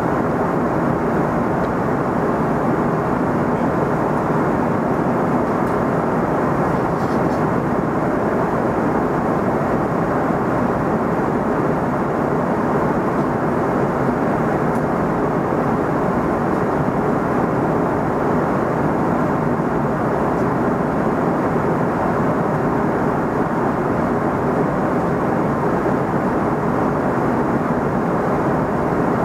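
Steady rushing cabin noise of an Airbus A340-300 in cruise flight, heard from inside the passenger cabin: airflow and engine noise holding an even level.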